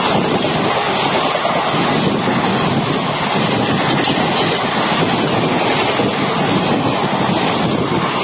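Passenger coaches of an express train rushing past at speed: a loud, steady roar of steel wheels on the rails and moving air.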